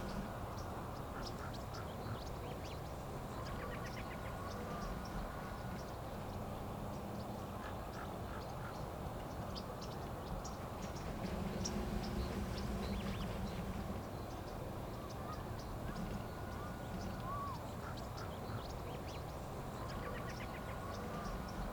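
A mated pair of ravens making rapid runs of clicking calls, in several short bursts, with short soft calls in between.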